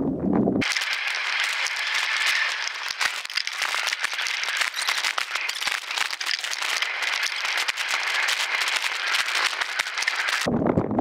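Mountain bike riding over a rough trail, a dense crackling and rattling made of many small clicks from the tyres and bike. The low wind rumble on the microphone drops out about half a second in and comes back near the end.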